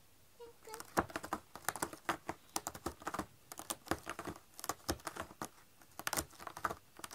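A cat clawing at a corrugated cardboard scratcher: quick, irregular scratching rasps and clicks that start about a second in and come in clusters.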